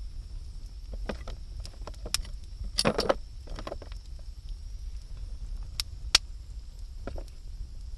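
Wood campfire crackling: scattered sharp snaps and pops, with a denser burst about three seconds in and a single sharp pop around six seconds, over a steady low rumble.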